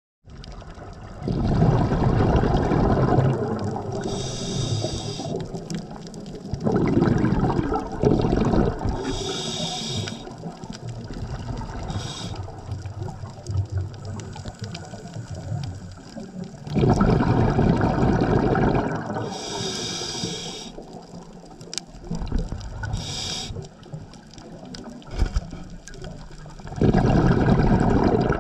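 Scuba diver breathing through a regulator underwater: a bubbling rush of exhaled air about four times, alternating with a short high hiss of each inhalation through the regulator.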